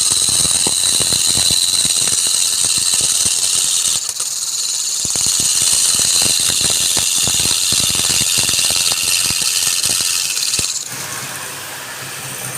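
Turning tool cutting a workpiece spinning on a lathe: a steady high-pitched screech with rough scraping. It breaks off briefly about four seconds in and stops shortly before the end, leaving a quieter low hum.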